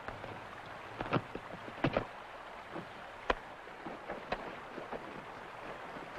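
Steady background hiss of outdoor ambience with a few soft, irregular clicks and knocks.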